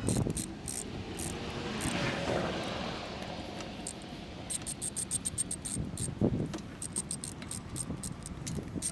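Scattered sharp metallic clicks and clinks from hand tools and engine parts being handled during reassembly, with a single knock about six seconds in. Early on, a passing vehicle's whoosh swells and fades.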